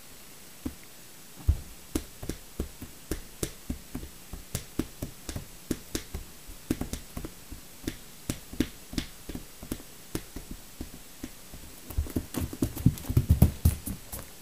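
Bare feet tapping and stepping on a hard floor, a steady run of light knocks about three a second, turning into louder, quicker thuds near the end.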